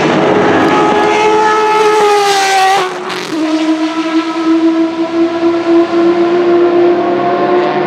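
Judd GV4 V10 racing engine of a 2001 Dallara SP1 prototype at high revs. The note sags gently, then falls sharply about three seconds in. After that a steady high-revving note climbs slowly as the car accelerates.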